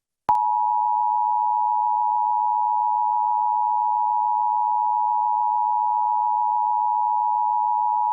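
Emergency Alert System two-tone attention signal (853 and 960 Hz sounding together): a loud, steady, unwavering dual tone that starts abruptly with a click about a third of a second in. It is the alert tone of a Required Monthly Test, sounded before the spoken test message.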